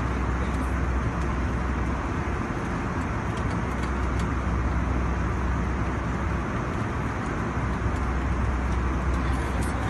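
Steady drone inside an airliner cabin: a constant low hum under an even hiss.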